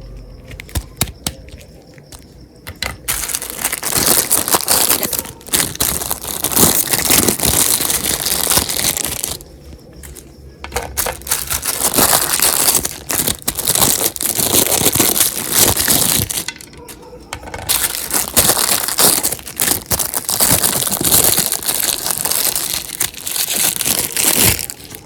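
Meat grinder crushing sweets, a dense crackling and squelching crunch that comes in long stretches, with short lulls about ten and seventeen seconds in.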